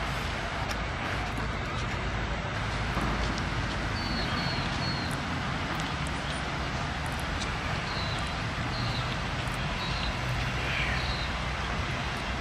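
Steady outdoor background noise with a low rumble, and small birds chirping in short quick groups: a few about four seconds in and more around eight to ten seconds in.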